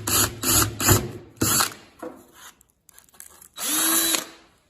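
Power drill boring a hole through a Turbo 350 shift kit's steel plate: several short bursts of drilling, then a brief steady run of the drill motor near the end.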